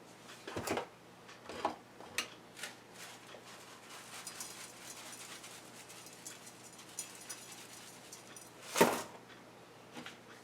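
Seasoning shakers being handled and shaken over raw chicken: a few light clicks and knocks, a stretch of quick, fine rattling, and one louder sharp sound about nine seconds in.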